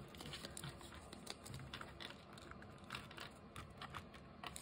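Faint rustling and creasing of a paper banknote being folded by hand, with scattered light clicks of long acrylic fingernails against the bill.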